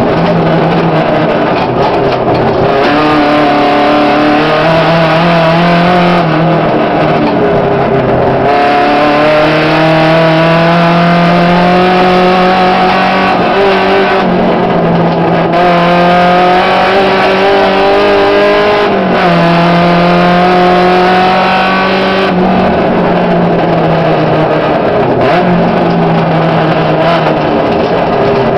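Volkswagen Gol rally car's engine, heard from inside the cabin, pulling hard at high revs. Each pull climbs in pitch and then drops sharply at a gear change or lift, repeatedly, over a constant rush of tyres on gravel.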